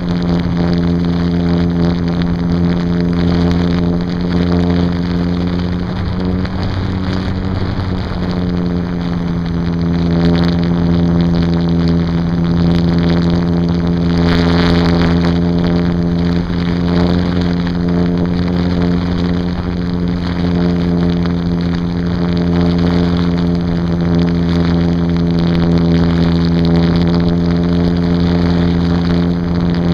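RC plane's motor and propeller running with a steady drone at near-constant throttle, heard through a camera taped to the airframe, with wind rushing over the microphone. The rush swells briefly about halfway through.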